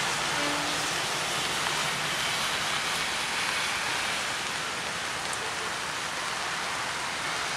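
Steady rain hissing down on wet ground and railway tracks, with a passenger train faintly rolling away underneath it.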